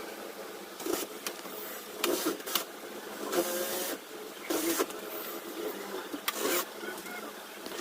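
Irregular clicks, taps and scraping of hands and tools working on a flat-screen TV's panel and bezel, about one sound every second, some with a short ring.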